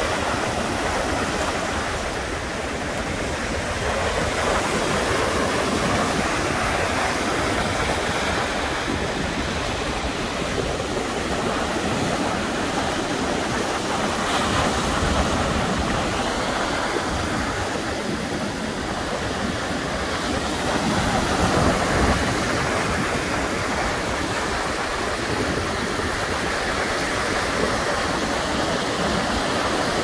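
Atlantic Ocean surf breaking onto the beach: a continuous wash of crashing waves and foam, swelling and easing slowly, loudest about 22 seconds in.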